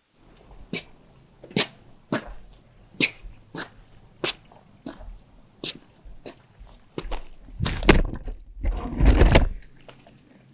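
Crickets trilling steadily at night, with footsteps landing about every two-thirds of a second. A louder low rumble and rustle comes in around eight to nine seconds in.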